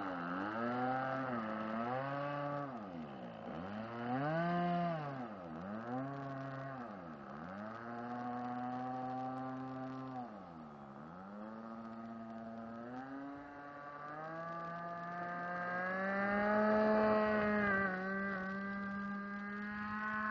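Engine of a radio-controlled Cherokee 140 model airplane, its pitch dropping and rising about half a dozen times as the throttle is worked while it taxis over grass. From about two-thirds of the way in, it climbs steadily to a high, held pitch for the takeoff run and climb-out.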